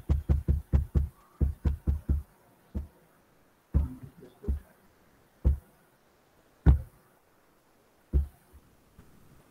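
Mouse clicks on a computer, reaching the microphone as short dull knocks. About ten come in a fast run over the first two seconds, then single clicks follow a second or so apart, as slides are stepped back one at a time.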